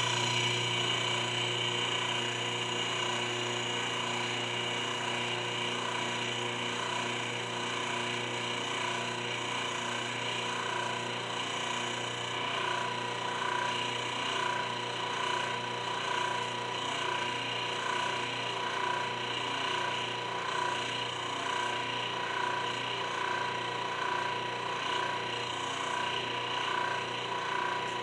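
Electric motor and hydraulic pump of a shop press running steadily with a hum. About ten seconds in, a faint regular pulsing joins it.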